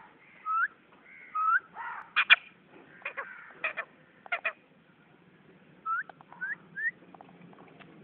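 Caged green parakeet calling: two short rising whistles, then a run of harsh, clipped squawks, then three quick rising whistles near the end.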